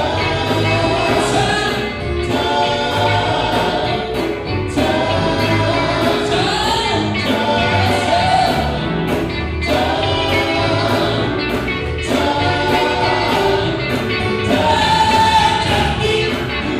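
Gospel choir singing in repeated phrases over a band with bass and a steady drum beat.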